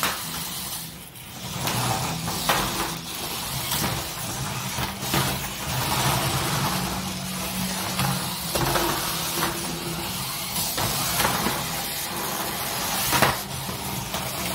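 Small battery-powered toy battle robots (Hexbug BattleBots) running: their geared motors whir steadily as they drive over the plastic arena floor. Plastic chassis knock and clack several times as the robots collide, with the sharpest knock near the end.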